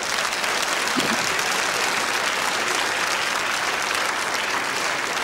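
Studio audience applauding steadily in response to a joke's punchline.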